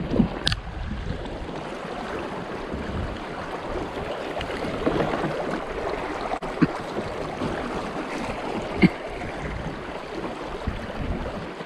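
River water running steadily around a kayak drifting downstream, with a few short knocks.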